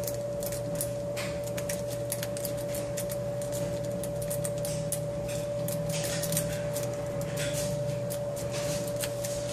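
Sparrows Triple Peak (Bogota-style) rake being worked in and out of an ACE 50mm padlock's keyway under tension, giving fast irregular metallic clicks and scrapes as it skips over the pin tumblers. A steady hum runs underneath.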